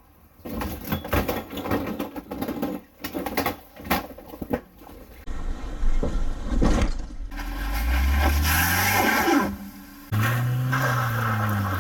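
Vehicle engines revving under load in a rapid series of short cuts, with knocking and scraping between. About eight seconds in, one engine's note rises; near the end another holds a steady note.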